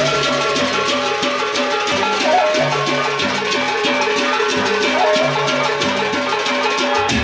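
Sasak gendang beleq gamelan ensemble playing a fast, interlocking melody on small bronze gong-chimes over quick, dense metallic clashes. The deep strokes of the big barrel drums fall away and come back in near the end.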